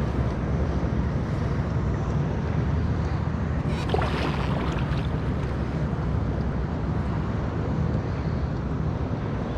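Steady low rumble of wind buffeting the microphone on open water, with a brief sharper sound about four seconds in.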